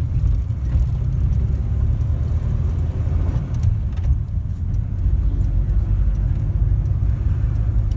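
1946 Hudson Commodore 6 on the move, heard from inside the cabin: a steady low rumble of its straight-six engine and road noise.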